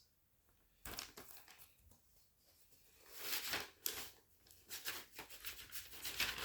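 Cardboard LP sleeves being handled and slid against one another: dry rustling and scraping, one short burst about a second in and longer stretches from about three seconds on.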